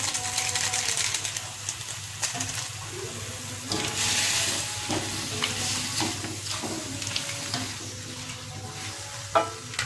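Ridged luffa pieces sizzling in a little liquid in a wok while a spatula stirs and scrapes through them in repeated strokes, with one sharp knock near the end.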